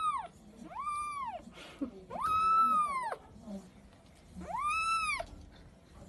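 Kitten meowing four times, high calls that each rise and fall in pitch; the third is the longest and loudest.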